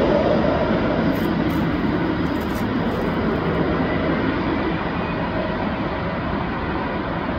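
Jet engine noise from a twin-engine airliner on final approach, just past overhead and moving away: a steady rushing rumble that slowly fades.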